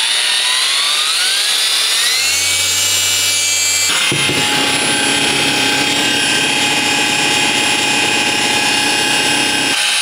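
SPTA 12V mini cordless dual-action polisher with a 3-inch pad and 8 mm throw, running free with the pad turned up: its motor whine rises in pitch as it spins up over the first two seconds and then holds steady. About four seconds in the sound turns abruptly harsher and buzzier, and it keeps running steadily, checked at lowest and highest speed for vibration, which is somewhat present.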